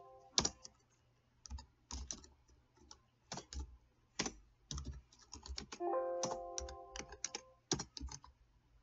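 Typing on a computer keyboard: irregular, quick key clicks. About six seconds in, a steady chime-like tone sounds for about a second.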